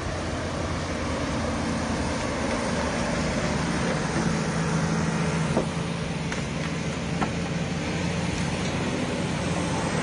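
Crawler bulldozer's diesel engine running steadily as the machine works, with a few short metallic clanks about halfway through.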